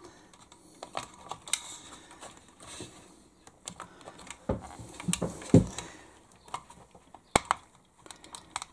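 Irregular small clicks and knocks of hands handling wires and plastic parts inside a hobby RC model truck's chassis, with a few duller knocks about five seconds in and one sharp click near the end.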